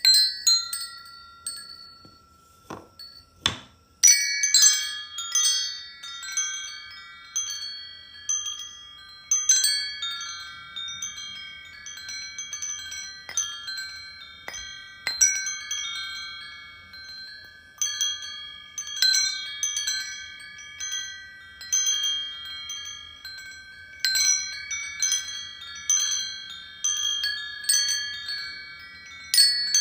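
Metal wind chimes ringing, several bright pitched tones struck at irregular intervals, overlapping and dying away. A single quieter tone gives way to a fuller cluster of strikes about four seconds in.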